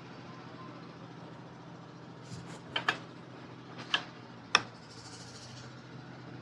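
A handful of sharp metal clinks from parts and tools being handled during work on a car AC compressor's clutch, as the pulley is about to go on, over a faint steady hum. They fall between about two and five seconds in, the last the sharpest.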